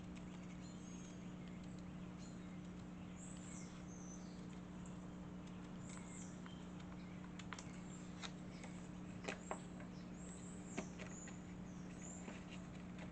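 Scissors cutting a card-stock paper template: a few quiet, sharp snips in the second half, with faint high scraping and rustling, over a steady low electrical hum.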